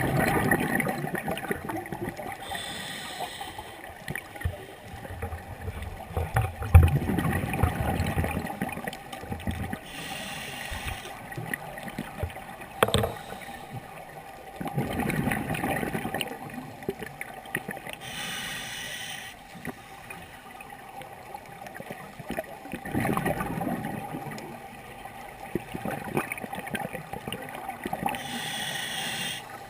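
Scuba diver breathing through a regulator underwater: a short hissing inhale about every eight seconds, each followed a few seconds later by a longer rumbling burst of exhaled bubbles.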